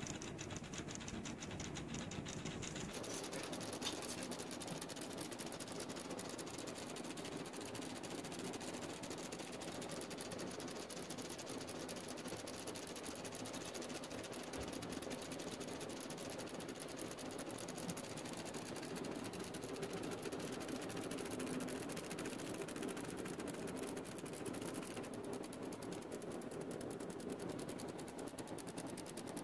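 Analogue perpetual-calendar wall clock's motorised movement whirring with a fast, steady ticking as it drives the hands around to the corrected time.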